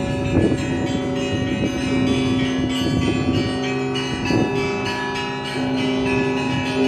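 Orthodox monastery bells of the Pochaiv Lavra bell tower ringing in full peal. Many bells sound together with overlapping, sustained tones over a steady low bell note, with heavier fresh strikes about half a second in and again about four and a half seconds in.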